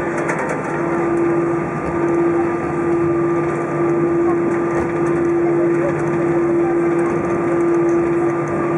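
Inside the cabin of an Airbus A320 taxiing after landing: the steady hum of the jet engines at idle, with a constant whine over the cabin noise.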